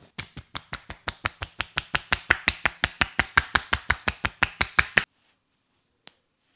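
A barber's hands tapping and slapping rapidly on a head during an Indian head massage: an even run of about five or six sharp slaps a second that grows louder, then stops abruptly about five seconds in. A single sharp click follows about a second later.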